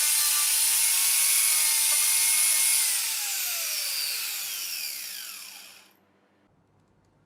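Angle grinder fitted with a chainsaw-chain cutting head, running at full speed with a steady high whine. About three seconds in it is switched off, and the whine falls in pitch as it spins down, stopping about six seconds in.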